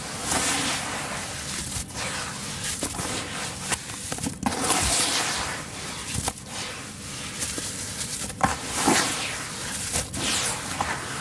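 Hands squeezing and crumbling wet sand-and-cement mix, gritty crunching and crackling in irregular bursts as clumps are crushed and dropped back into the tub.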